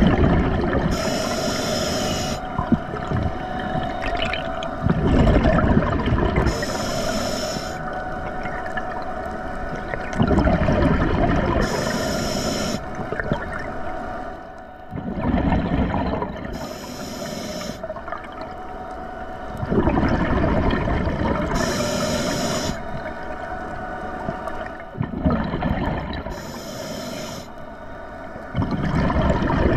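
Scuba diver breathing through a regulator underwater, in a slow regular rhythm about every five seconds: a short hiss of inhalation, then a longer rumbling gush of exhaled bubbles. A steady hum runs underneath.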